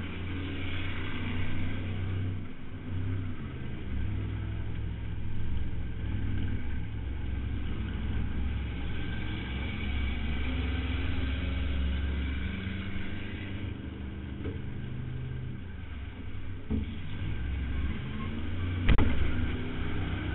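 2004 Ford Crown Victoria's V8 running under race load, heard from inside the stripped cabin, its note rising and falling. A single sharp bang near the end is the loudest sound.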